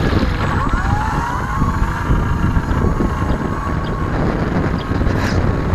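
An E-flite Apprentice RC plane's electric motor and propeller whine, the pitch gliding up and down in slow arcs as the plane flies about. Wind rumbles heavily on the microphone underneath.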